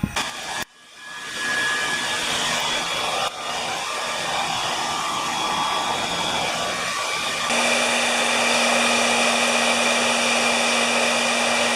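Hair dryer blowing steadily, heating an iPad Air's cracked screen to soften the glue holding it. About seven and a half seconds in it gets louder, with a steady low hum added.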